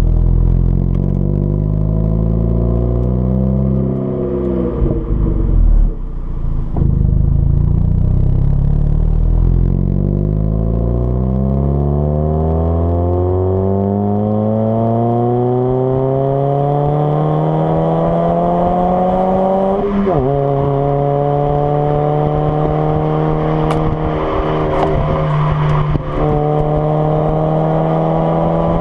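Hyundai Avante AD (Elantra) 1.6-litre petrol four-cylinder with a custom dual exhaust, accelerating under load. The engine note rises, dips briefly, then climbs slowly for a long stretch. About twenty seconds in it drops sharply at a gear change and then holds a steady drone.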